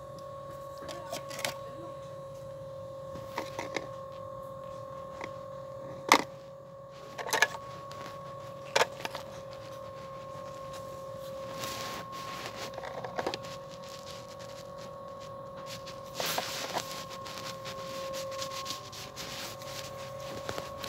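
A steady hum at two pitches, with scattered light clicks and knocks, one sharper knock about six seconds in, and two short rustles later on.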